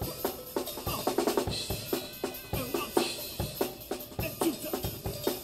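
Live funk band with the drum kit out front: a busy, regular kick-and-snare beat with cymbals, with the band's pitched instruments playing underneath.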